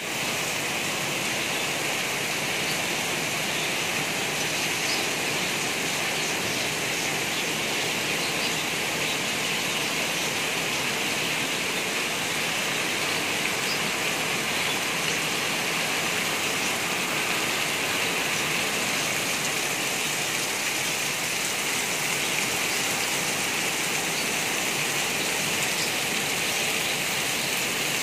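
Heavy rain falling steadily, a continuous even hiss with no breaks.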